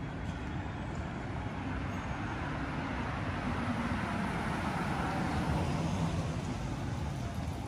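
City street traffic noise, with a road vehicle passing: its noise swells to a peak about halfway through and eases off near the end.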